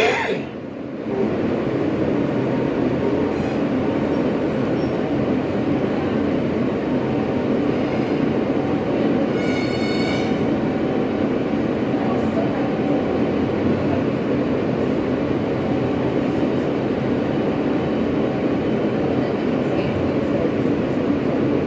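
Steady running noise from inside an Alstom R160A New York City subway car, with wheel-on-rail and motor sound, and a brief high-pitched squeal about ten seconds in.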